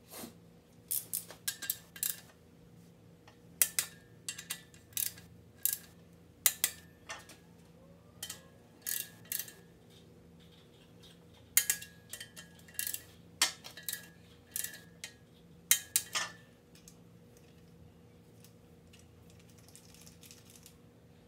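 Click-type torque wrench clicking off as engine main-cap bolts reach torque, in sharp metallic clicks, singly and in quick pairs and clusters, with the clink of the socket going onto the bolts. The clicking stops about 16 seconds in.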